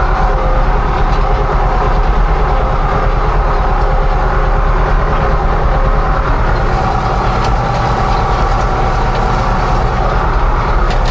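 Tractor engine running steadily under load with a rhythmic mechanical clatter, working the vineyard soil.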